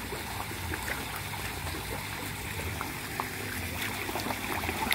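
Water steadily trickling and splashing into a small recirculating (RAS) fish pond, with a faint low hum underneath and scattered small splashes.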